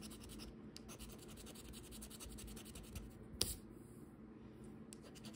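Scratch-off lottery ticket being scratched in quick, even strokes, about ten a second, with two short pauses. A single sharp tap a little past halfway is the loudest sound.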